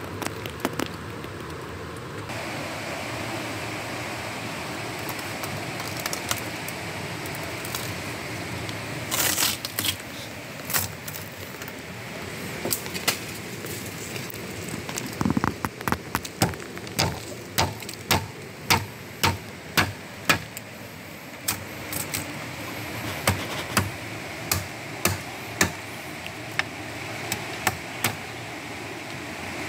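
Bamboo slats of a wooden rat trap clacking as it is handled: sharp knocks, a regular run of about one and a half a second through the middle and more near the end, over a steady background hiss.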